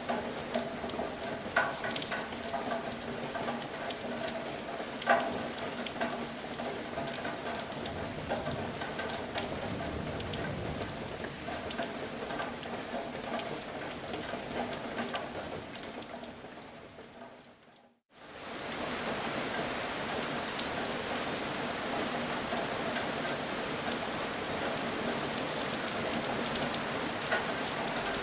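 Steady rain with individual drops striking a surface, one louder drop hitting about five seconds in. About two-thirds of the way through the rain fades out almost to nothing, then fades back in as a smoother, even rain hiss.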